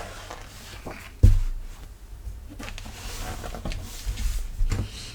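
Handling noise: soft knocks and rustles with one loud thump about a second in.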